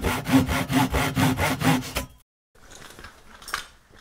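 Hand saw cutting wood in quick, even strokes, about two a second, stopping about two seconds in; a faint scraping follows.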